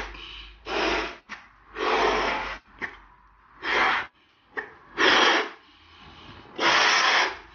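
A man blowing up latex balloons by mouth: six loud, heavy breaths with short pauses between them, with faint rubbery rustling of the balloons in his hands.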